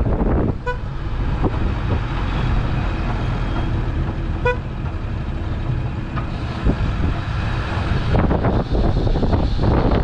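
Two short vehicle horn toots about four seconds apart, each one brief pitched beep, over steady wind rumble on the microphone.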